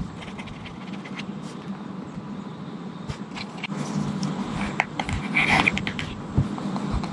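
Stylus scratching and tapping on the reMarkable 2's textured, paper-like e-ink screen in short strokes, with a brief, busier scratchy stretch about five and a half seconds in.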